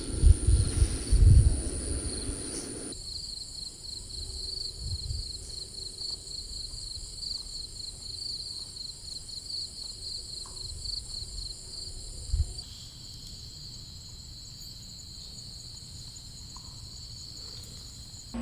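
Rain with a few low thumps for the first few seconds, then night insects chirping in a quick, even pulse of high notes. Near the end the pulsing settles into a steady high trill.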